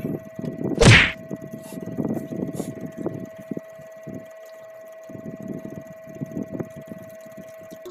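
Two people peeling and eating bananas close to the microphone: irregular soft chewing, mouth and peel-tearing noises over a steady high-pitched hum. A brief loud rush of noise about a second in is the loudest sound.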